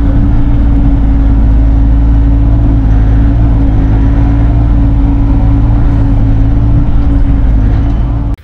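Bobcat E42 R series mini excavator's diesel engine running steadily under digging load, heard from inside the closed cab as the boom and bucket dig dirt. It cuts off suddenly near the end.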